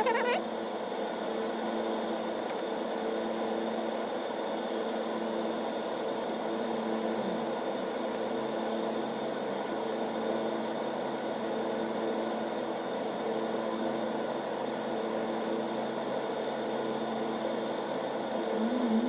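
A steady mechanical hum with a whirring noise and several held tones, like a running motor-driven appliance; a lower tone joins about nine seconds in. A few faint clicks sound over it.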